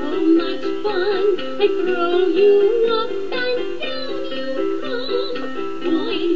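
Background music: a song with a quick, repeating melody of short notes and a high sung voice that wavers in pitch.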